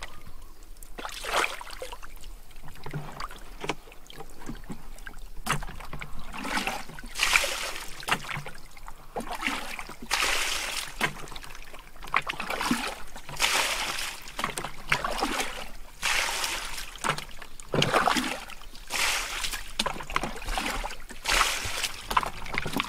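Fish thrashing in shallow muddy water, making short splashes and sloshes that come irregularly, about one a second.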